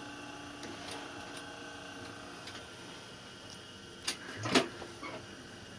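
Steady faint electric hum at a sewing machine, with a couple of sharp clacks and a rustle of fabric about four seconds in as the cap is handled at the machine; no stitching run.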